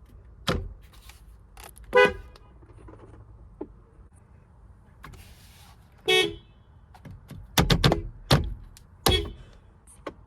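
Nissan car horn sounded in a series of short toots, with several quick toots in a row near the end.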